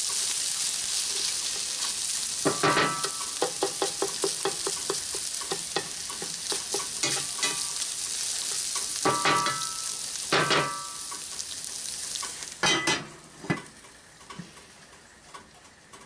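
Diced potatoes and sausage sizzling hard in a cast iron skillet while a bamboo spatula stirs them, scraping and knocking against the pan in clusters. Near the end the cast iron lid goes on with two loud knocks, and the sizzle becomes much quieter under it.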